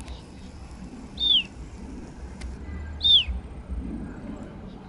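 Two short, clear whistles, each falling in pitch, about two seconds apart, over a low steady rumble.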